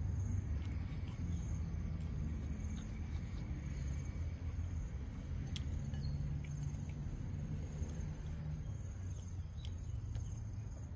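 Insects chirping outdoors in a high, even pulse about once a second, over a steady low rumble, with a few faint clicks.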